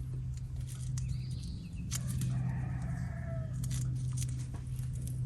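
Small clicks and handling noises from tire-plug tools being worked by hand, over a steady low hum. A faint, wavering, drawn-out call comes in about a second in and dies away by about three and a half seconds.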